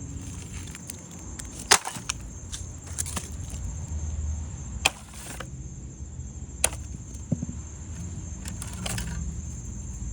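A few scattered sharp knocks and clacks on a Roomba robot vacuum's hard plastic body as it is handled and struck, the loudest about two seconds in, over a low steady rumble.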